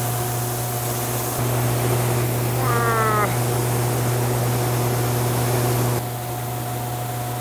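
Rice husking machinery running with a steady hum as unhulled rice is poured in. About three seconds in, a man lets out a short strained yell that falls in pitch.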